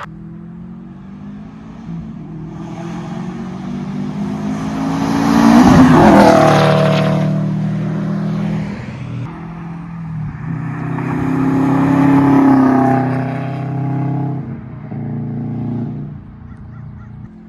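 Drive-bys of a Subaru WRX STI with its mufflers chopped off and replaced by straight pipe: the exhaust sound swells loud and falls in pitch as a car passes about six seconds in, then an engine revs up with rising pitch and passes around twelve seconds in.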